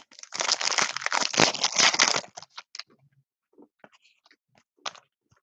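A trading card pack's wrapper being torn open and crinkled for about two seconds, then a few light clicks and ticks as the cards are handled.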